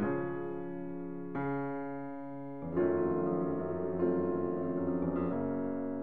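Background piano music: slow, sustained chords that change about every second and a half.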